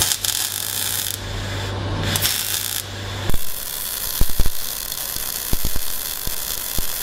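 MIG welding arc on steel pipe: a steady frying hiss with sharp crackling pops of spatter, the pops thicker from about three seconds in.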